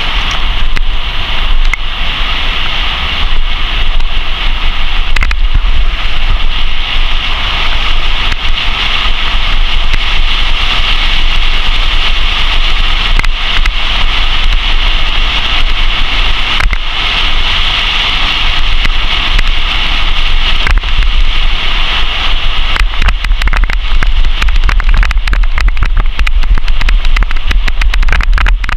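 Steady rush of wind buffeting a bicycle-mounted camera's microphone, with tyre rumble on a dirt road. The rumble turns more rattly with many small clicks over the last few seconds as the road gets rocky.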